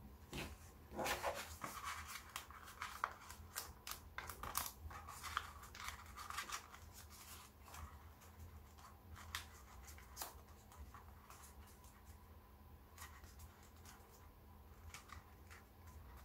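Black origami paper being folded and pressed into creases by hand: soft crinkles and scratchy clicks, busiest in the first half and sparser after.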